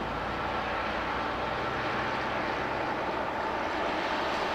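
Railway tie-gang maintenance-of-way machines running along the track, with a steady engine sound and a faint steady whine, growing slowly louder as they approach.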